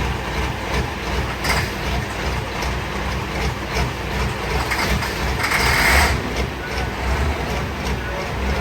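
Engine running steadily with a low hum and light mechanical ticking, and a short hiss about five and a half seconds in.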